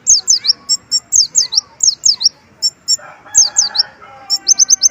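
Little spiderhunter (kolibri ninja) singing: quick runs of sharp, high, downward-slurred notes in groups of two to four, with short double chips between. Its song is laced with mimicked Oriental white-eye (pleci) phrases.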